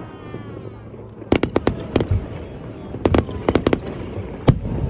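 Aerial fireworks bursting: a quick run of sharp bangs about a second and a half in, another run around three seconds, and one loudest bang near the end, over a low steady rumble.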